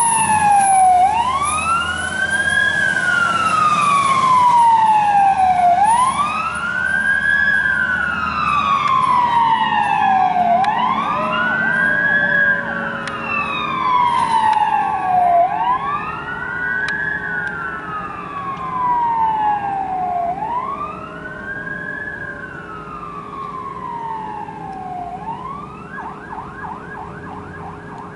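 Emergency vehicle sirens in a wail, each cycle rising quickly and then falling slowly, about once every five seconds, growing fainter as the fire engine and ambulance drive away. Near the end the siren switches to a fast yelp.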